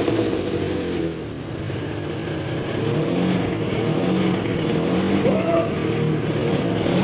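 Honda NSR250R's two-stroke 250 cc V-twin running just after starting and being blipped on the throttle, its pitch rising and falling. This is a long-stored, oil-flooded engine firing after years of standing and spitting out the old oil it was soaked in.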